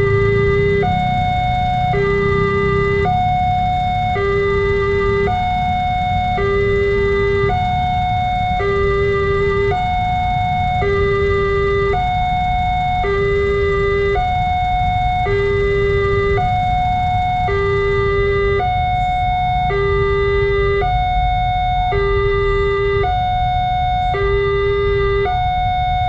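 Electronic two-tone warning siren of a railway level crossing sounding continuously, alternating between a low and a high tone about once a second. A low rumble runs underneath.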